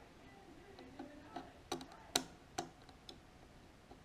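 Multimeter test probes tapping and clicking against contact points on a car window master switch's circuit, a handful of irregular sharp ticks, the loudest a little after two seconds in.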